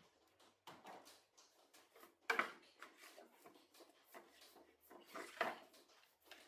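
Handling noise: scattered light knocks and clicks of objects being moved and set down, with two louder knocks about two seconds in and again near five and a half seconds.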